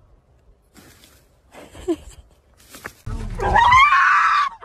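A dog gives a loud, drawn-out howling call whose pitch rises, lasting about a second, near the end; before that there is little but faint rustling.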